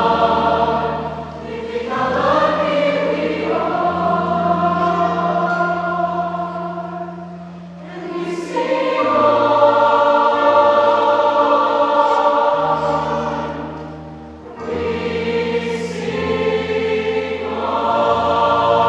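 Large mixed choir of men and women singing sustained chords in harmony, in long phrases that swell and ease off about every six seconds.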